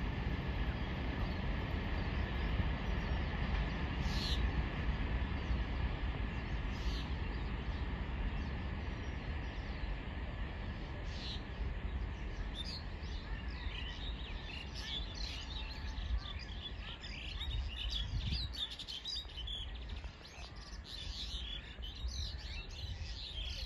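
Low rumble of a departing freight train fading into the distance, dying away about three-quarters of the way through, while birds chirp more and more often in the second half.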